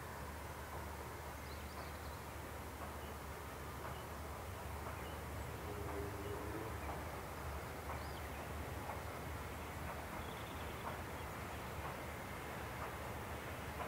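Countryside ambience: a steady low rumble with faint, scattered bird chirps, and a brief low tonal note about six seconds in.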